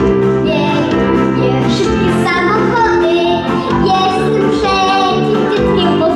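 A young boy singing through a microphone over instrumental accompaniment.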